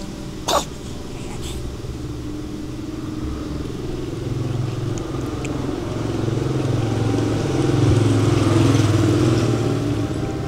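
A motor vehicle's engine droning, growing louder over several seconds and easing off near the end, as a vehicle passing close by. A short sharp click about half a second in.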